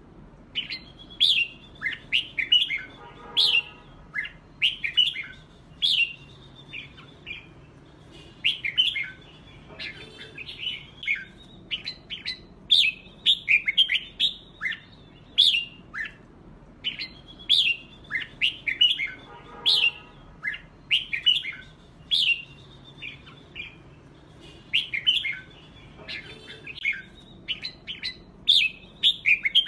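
Red-whiskered bulbul song: short, bright chirping phrases in quick succession, with the same run of phrases repeating about every sixteen seconds.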